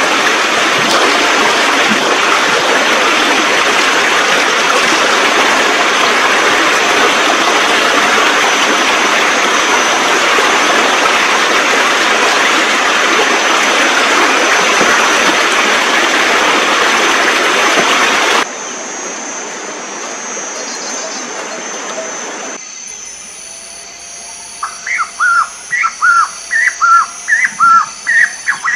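Rushing water of a shallow rocky stream, a steady loud rush that cuts off abruptly about two-thirds of the way through, leaving quieter outdoor background. Near the end a bird starts calling, a quick run of short whistled chirps.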